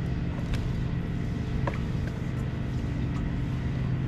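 A motor running steadily with a low, even hum and a few light ticks.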